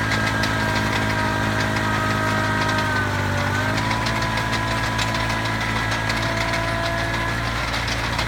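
Small tractor engine running steadily while pulling a one-row potato digger, its pitch sagging briefly about three seconds in as it takes load, then recovering. A fast ticking rattle runs over the engine.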